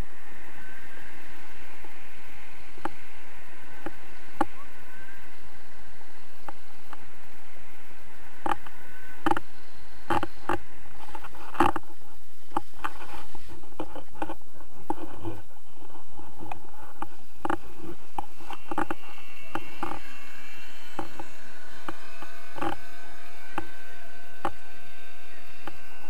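Wind rushing over an action camera's microphone during a tandem paraglider's descent and touchdown on snow, a steady hiss with scattered knocks and bumps through the middle stretch.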